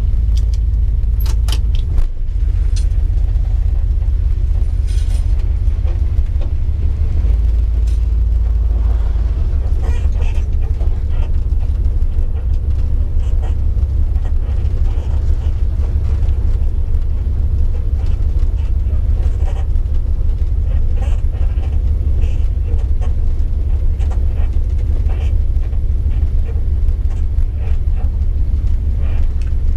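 The 1964 Dodge Custom 880's V8 engine runs with a steady low rumble, heard from inside the cabin as the car gets under way, its pitch stepping a few times. A few sharp clicks come about a second or two in.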